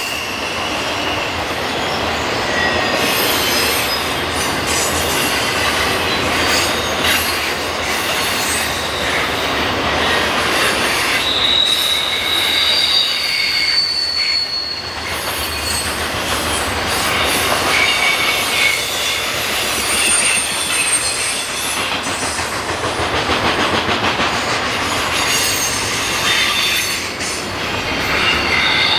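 Cars of a BNSF intermodal freight train rolling past at close range: a steady loud rattle of steel wheels on the rails. On and off, a high wheel squeal rings out for a second or two at a time.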